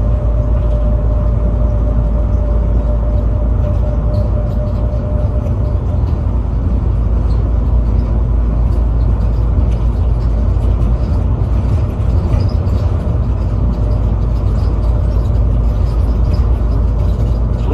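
Airport people-mover shuttle car running along its guideway: a loud, steady low rumble, with a thin steady tone that fades out about six seconds in.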